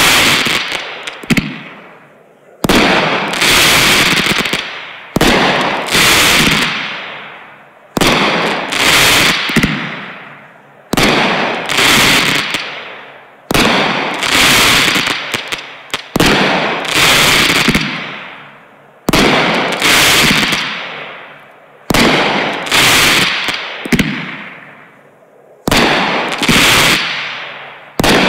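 TNT Fireworks 'Bruno' 30-shot consumer cake firing aerial shots, about one every two and a half to three seconds. Each is a sharp bang followed by a fizzing crackle that fades away over about two seconds.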